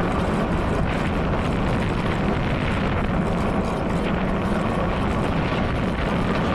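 Steady wind buffeting the microphone of a moving rider, with the low rumble of wheels rolling over an asphalt path.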